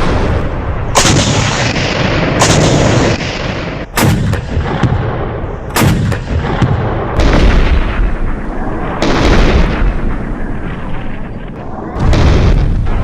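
An artillery barrage: about seven heavy shots, one every one and a half to three seconds, each followed by a long low rolling rumble over a continuous din of distant firing.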